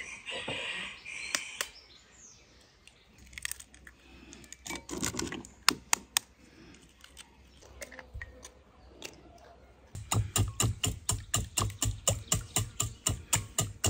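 Eggs cracked on the rim of a glass bowl, with scattered sharp taps and clicks of shell and glass. About ten seconds in, a wire whisk starts beating the eggs in the glass bowl, its wires clicking against the glass about four times a second.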